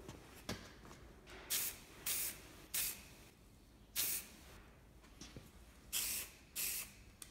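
Aerosol can of matt black spray paint hissing in six short bursts, each about a third of a second, as paint is sprayed onto a metal ammo box.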